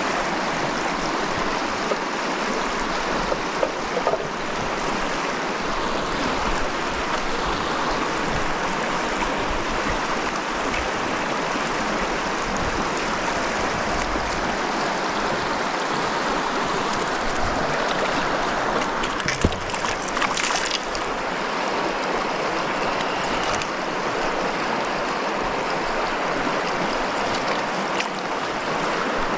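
Stream water rushing steadily, with a few brief clicks; the sharpest comes about two-thirds of the way through.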